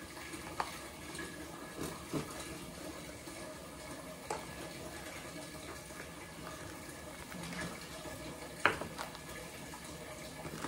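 Knife cutting through raw chicken wing joints onto a cutting board: a handful of sharp clicks and knocks, the loudest near the end, over a steady faint background hiss.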